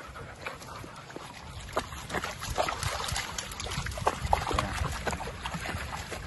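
Dogs splashing as they wade and jump through shallow water: a run of irregular splashes and sloshes.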